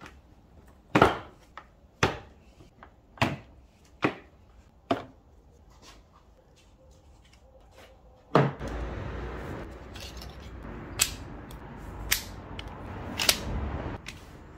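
Hand work on a VW Golf V 1.4 petrol engine: five sharp plastic clicks and pops about a second apart as the engine cover is pulled off its mounts. A loud thump follows, then steady rustling handling noise with three more clicks as the ignition coils are pulled and a spark plug wrench is fitted.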